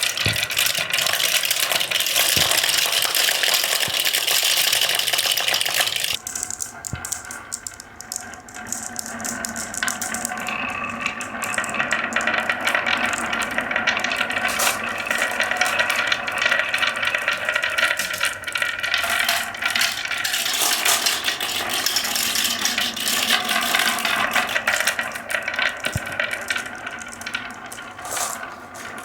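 Marbles rolling and clattering down the tracks of a HABA wooden marble run: a dense clatter that drops away suddenly about six seconds in, then steady rolling with many small clicks.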